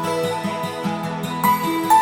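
Gentle instrumental background music: a repeating plucked-string pattern of low notes under sustained higher melody notes.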